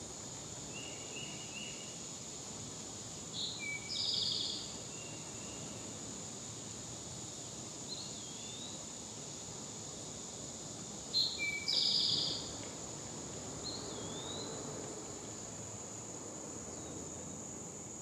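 Wild songbirds calling over a steady high-pitched insect drone: two loud short phrases, about four seconds in and again about twelve seconds in, with a few thinner chirps between.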